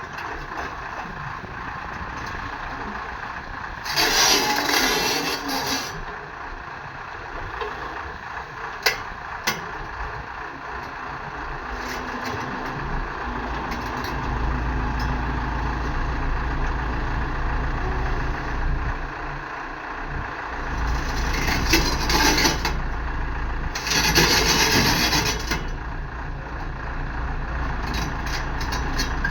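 Hyundai R140LC-9 hydraulic excavator running steadily while loading, its engine working harder about halfway through. Three loud hissing bursts of one to two seconds each break in, plus a couple of sharp clicks.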